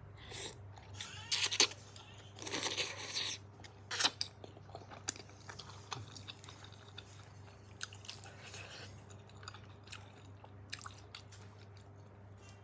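A person chewing and biting food close to the microphone, in irregular bursts that are loudest in the first four seconds, then quieter scattered mouth clicks. A faint steady low hum runs underneath.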